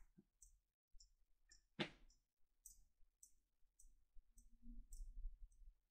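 Near silence: room tone with a few faint scattered clicks, one a little louder about two seconds in, and a faint low murmur near the end.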